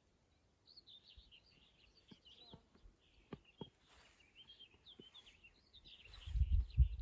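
Small songbirds twittering and chirping in quick, busy phrases. About six seconds in, a low rumble comes in and becomes the loudest sound.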